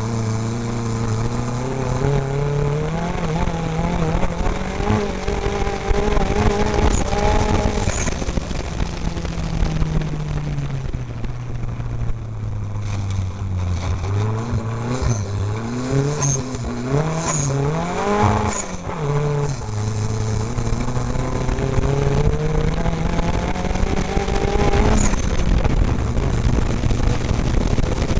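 Off-road race vehicle's engine heard from on board, its pitch rising and falling over and over as the driver accelerates and backs off around the dirt course, with a quick rev up and down about two-thirds of the way through, over the rumble of the vehicle on rough ground.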